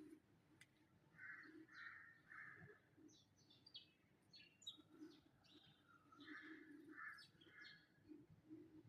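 Faint birds chirping: many quick high tweets, with two runs of three lower notes in a row, one about a second in and another past six seconds.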